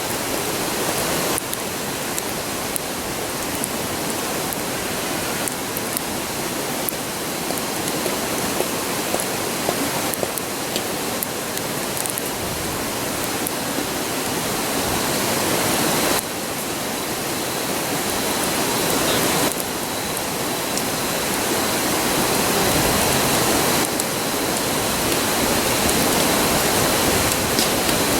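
Steady rushing of a river, with faint scattered crackles and pops from a wood campfire.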